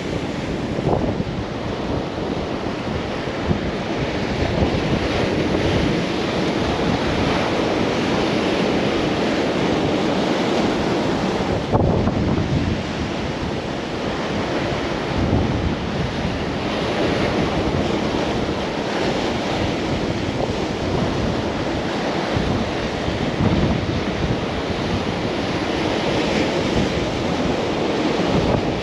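Sea surf breaking and washing among shoreline rocks: a continuous rush that swells and eases as sets of waves come in. Wind buffets the microphone with a low rumble underneath.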